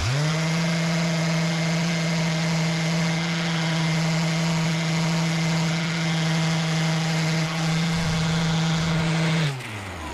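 DeWalt random orbital sander with a mesh sanding pad, sanding cured epoxy resin and oak. It starts up and runs at a steady pitch. About nine and a half seconds in it is switched off and its pitch falls as it winds down.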